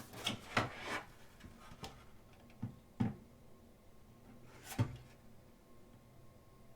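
Thick pages of a photobook being turned, each turn a short flap with a soft thud: three quickly in the first second, then three more spaced out over the next four seconds.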